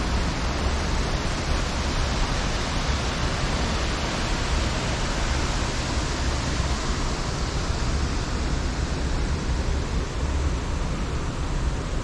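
Steady rush of water from the Athirappilly waterfall: an even hiss of falling water with a low rumble beneath it.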